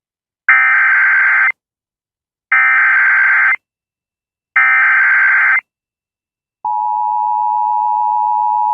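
Emergency Alert System SAME header: three one-second bursts of screeching digital data tones, about a second of silence between them, encoding a tornado warning. About six and a half seconds in, the steady two-tone EAS attention signal starts and holds.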